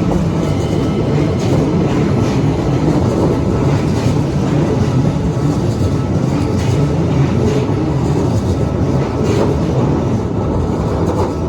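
Keikyu Line electric train passing close by over a level crossing: a loud, steady rumble of steel wheels on rail, with scattered clicks as the wheels cross rail joints.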